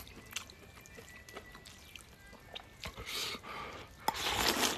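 Someone slurping noodles twice, in hissy drawn-in bursts, with light clicks in between.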